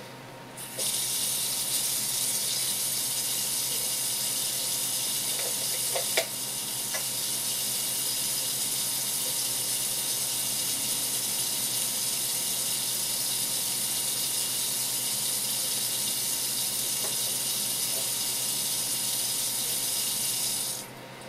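Tap water running from a flexible gooseneck faucet and splashing onto the flat floor of a stainless steel sink, turned on just under a second in and shut off shortly before the end. A single sharp knock about six seconds in.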